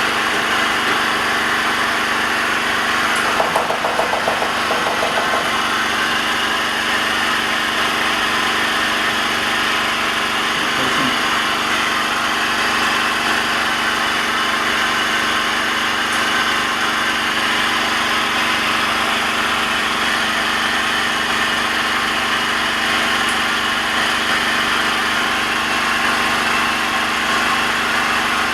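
Small electric motor of a phone-repair machine running at a steady speed, a continuous whirring hum with several steady tones over a hiss.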